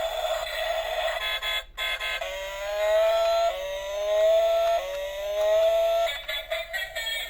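Toy ambulance siren sounding three rising whoops, each just over a second long, starting about two seconds in, over background music.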